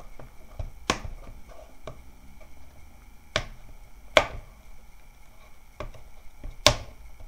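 Plastic screen bezel of a ThinkPad T400s laptop lid snapping loose at its clips as it is pried off by hand. There are four sharp snaps at uneven intervals with fainter ticks between them; the last two snaps are the loudest.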